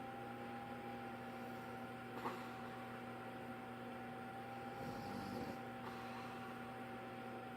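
A steady electrical hum runs throughout, with a short click a little after two seconds and one faint, low snoring breath from a sleeping man about five seconds in.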